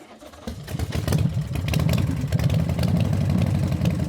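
Motorcycle engine running, coming up to a steady idle about half a second in, with a fast low pulsing rumble.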